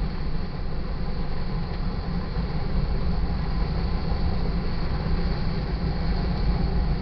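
Freight cars of a sand train rolling past a grade crossing: a steady, heavy rumble of steel wheels on rail that does not change.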